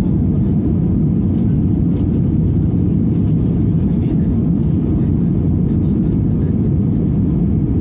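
Airliner cabin noise in flight: a steady, loud, low drone of engines and rushing air.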